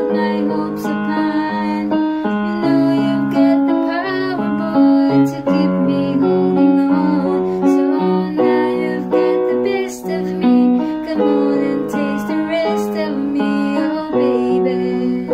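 Casio electronic keyboard played with both hands in a piano voice: held chords with a melody line moving over them.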